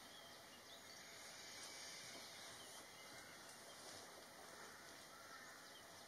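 Near silence: faint, steady outdoor background hiss.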